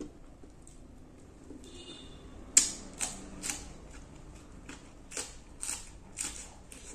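A crisp lettuce leaf wrap being bitten and chewed close to the mic: a run of about eight sharp crunches starting about two and a half seconds in, the first the loudest.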